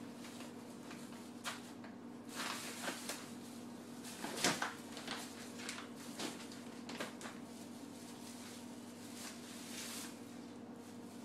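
Thin plastic grocery bags rustling and crinkling in irregular bursts as a pet noses and paws through them, loudest about four and a half seconds in. A steady low hum runs underneath.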